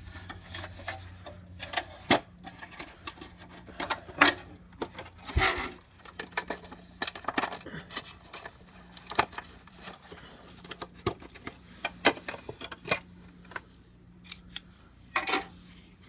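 Irregular clicks, taps and light clattering of plastic and metal parts handled by hand while a Hoover Portapower vacuum cleaner is taken apart, over a faint steady hum.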